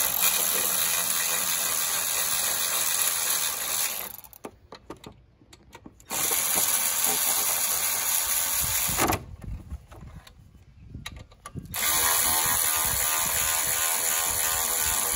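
Milwaukee cordless electric ratchet running the alternator's mounting bolts in, in three runs of a few seconds each with pauses of about two seconds between.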